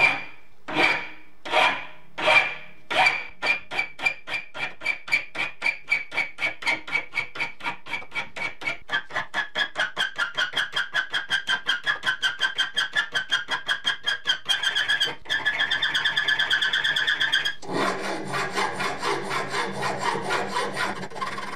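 Flat hand file rasping back and forth across a threaded metal hex nut, each stroke with a ringing metallic edge. The strokes start slow and loud, about one a second, and quicken to three or four a second, turning fuller and lower in the last few seconds.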